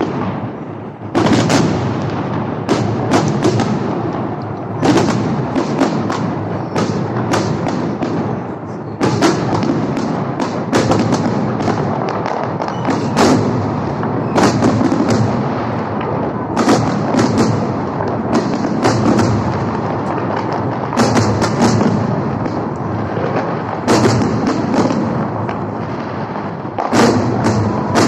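Fireworks display: many sharp bangs and crackling bursts at irregular intervals, often several a second, over a continuous rumble of explosions.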